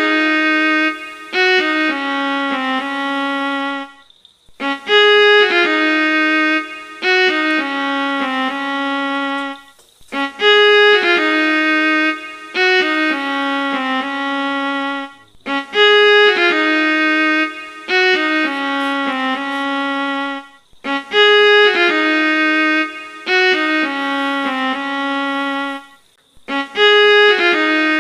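Background music: a short violin-like melody, the same phrase repeating about every five and a half seconds with a brief break between repeats.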